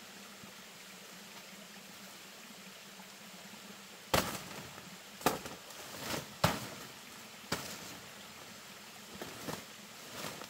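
Machete hacking through wild banana stems and leaves: four sharp chops about a second apart, starting about four seconds in, then two fainter knocks and rustling near the end. Before the chops only a faint steady forest hiss.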